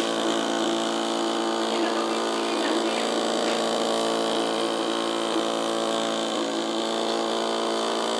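The 4M Doodling Robot's small battery motor, spinning an off-centre weight, buzzing steadily. The buzzing sets the robot vibrating on its marker legs across paper.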